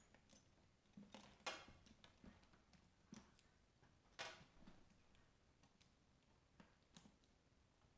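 Faint handling noises: scattered soft clicks and rustles, about half a dozen, the loudest about a second and a half in and again about four seconds in.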